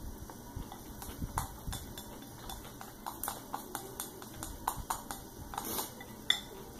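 Close-miked eating sounds: many small wet clicks of chewing and lip-smacking on black bean noodles, mixed with chopsticks tapping a ceramic bowl; a single sharp click just after six seconds in is the loudest.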